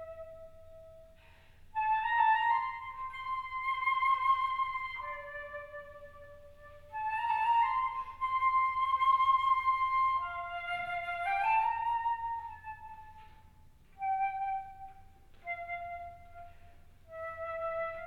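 Solo concert flute playing a slow melody of long, held notes, in phrases separated by short pauses.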